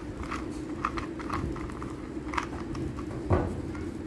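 A 2x2 Rubik's cube being turned through an algorithm, its layers clicking a few times a second in an uneven rhythm, over a steady low hum.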